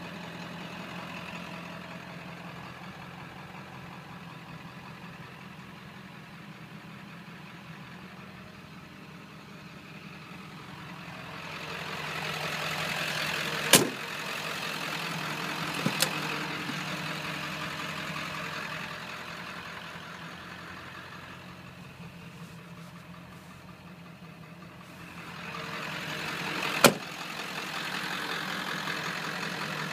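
A 7.3 L Power Stroke turbo-diesel V8 idling steadily, swelling twice as the listener moves closer to it. Sharp clacks cut in: one about halfway through, a double one a couple of seconds later, and another near the end.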